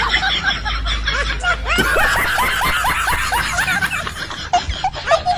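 Rapid, high-pitched laughter: quick short bursts of giggling one after another.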